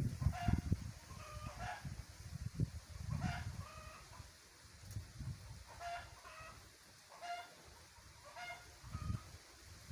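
Chickens clucking in short, repeated calls, about one a second. Gusts of strong wind rumble on the microphone.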